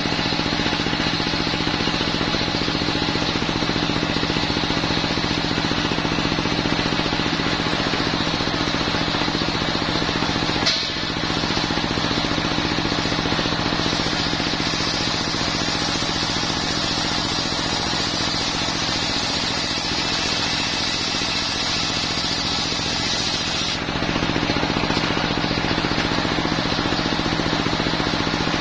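Homemade circular sawmill running: its single-cylinder diesel engine drones steadily while the spinning saw blade rips along a coconut-wood log, the cutting hiss growing stronger from about halfway. A single knock about eleven seconds in.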